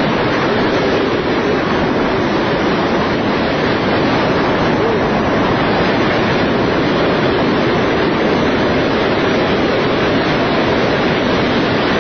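Steady, loud rush of wind buffeting the camera microphone during a tandem parachute descent under an open canopy.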